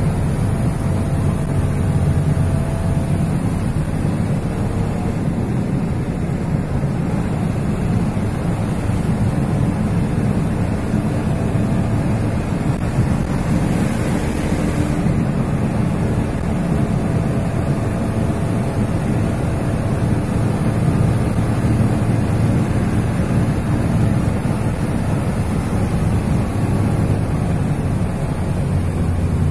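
Steady engine drone and road noise of a heavy vehicle climbing and cornering, heard from the cab, with wind buffeting the microphone. A brief swell of hiss about halfway through.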